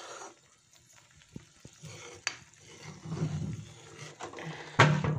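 Metal spoon stirring thick, simmering potato curry gravy in a kadhai, with scraping and small clinks against the pan and one louder knock near the end.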